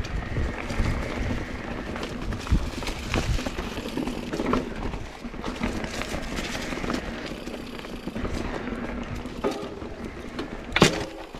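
Mountain bike rolling over a rough dirt trail: steady tyre and wind rumble, with the bike clattering over bumps. One sharp, loud clack comes near the end.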